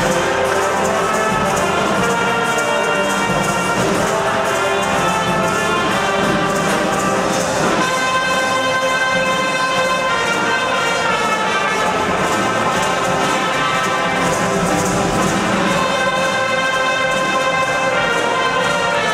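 Carnival brass band of trumpets, trombones and a tuba playing a tune together, with the ring of a large church around it.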